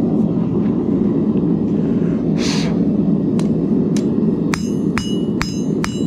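Gas forge burner running with a steady rushing noise. About four and a half seconds in, hammer blows on hot steel begin, about three a second, each with a metallic ring.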